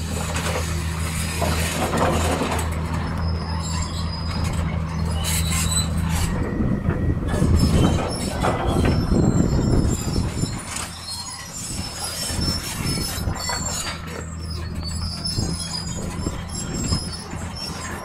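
Bulldozer working: its diesel engine runs steadily under the squeal and clank of its steel crawler tracks, getting louder and rougher for a few seconds about halfway through.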